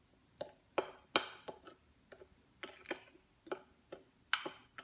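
Metal teaspoon clinking and scraping against a small glass bowl while stirring food colouring into thick meringue: a run of irregular light clicks, the loudest about a second in and near the end.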